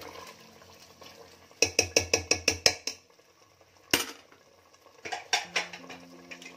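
Steel ladle clinking against the inside of an aluminium pressure cooker while stirring mutton in watery gravy: a quick run of about eight clinks about a second and a half in, one sharper knock near four seconds, and a few more clinks later.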